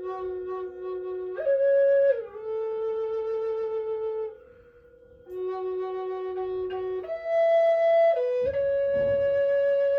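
A flute playing slow, long held notes that step between a few pitches, with a short pause midway, over a steady sustained drone tone.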